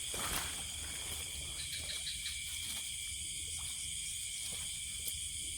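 Steady chorus of night insects such as crickets, several shrill tones held at different high pitches, over a low rumble with a few faint clicks.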